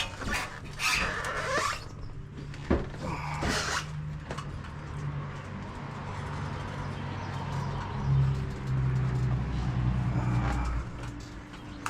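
Small two-stroke moped engine running at low speed while the moped is worked into a parking spot. It gets louder about eight seconds in and drops back near the end, with a few short squeaks in the first seconds.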